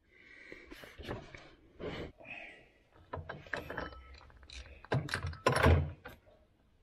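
Scattered clicks, taps and scrapes of a metal oil drain plug and hand tools being handled as the plug, fitted with a new O-ring, is put back into the oil pan. A louder cluster of clicks comes about five to six seconds in.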